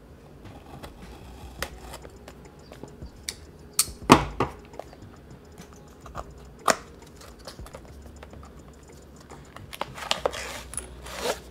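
Small cardboard box being opened by hand: scattered light clicks and taps of a knife blade slitting the seal and fingers working the end flap, with one louder knock about four seconds in. Near the end a rustling scrape as a fabric zipper pouch slides out of the box.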